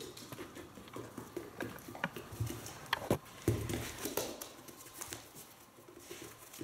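Dogs' claws clicking irregularly on a wooden floor as they walk and shuffle about, with a few heavier soft thumps a couple of seconds in.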